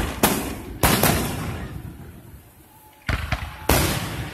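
Aerial fireworks shells bursting: several loud booms, each trailing off in a rolling rumble, with a short lull in the middle before more bursts.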